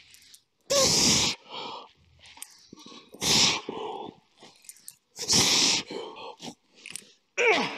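A man breathing hard through a set of heavy dumbbell rows: a loud, forceful exhale about every two seconds, each followed by a quieter breath in, with a short strained grunt near the end.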